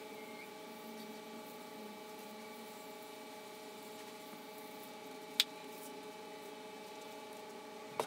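A steady, quiet hum made of several fixed tones, broken by one sharp click about five and a half seconds in and another right at the end.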